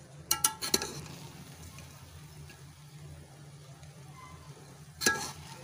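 Metal slotted spoon clinking against the cooking pot as cooked biryani rice is scooped: three quick clinks just after the start and one louder knock near the end, over a low steady hum.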